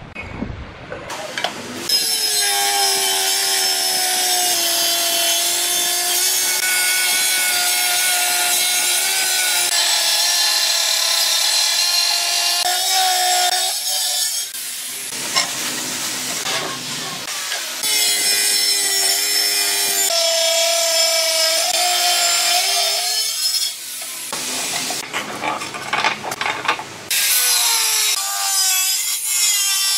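Electric angle grinder with a diamond disc cutting ceramic tile: a steady motor whine that sags in pitch as the disc bites, over a loud grating cut noise. The cutting is broken by a few short pauses between passes.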